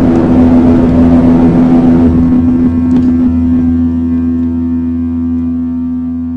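Live electronic noise music: a dense, rough noise texture over a low drone thins out about halfway through. It leaves a steady held tone with a stack of overtones that slowly fades.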